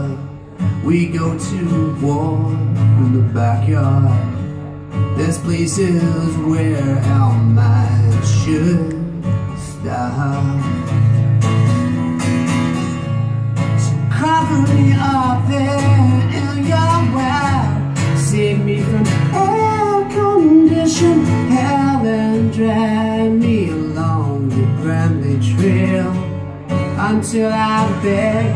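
A man singing a slow song, accompanied by his own acoustic guitar, at a live solo performance.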